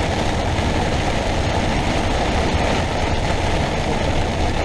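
Heavy rain pelting the RV's cab while it drives, a steady dense hiss over the low rumble of the engine and tyres on the soaked road.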